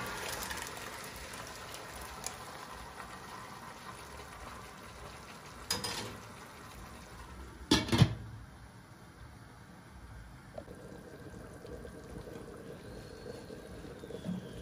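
Chicken and blended tomato simmering in a pot on a gas stove, a steady bubbling hiss. Near the start the tomato purée is poured in. A knock comes about six seconds in, and a louder double clatter around eight seconds as the pot lid is handled.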